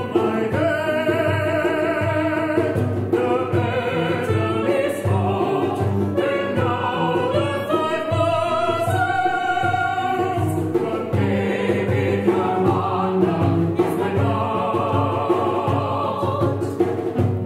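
Live chamber-opera music: singing with vibrato over an accompaniment that keeps a steady low pulse of about two beats a second.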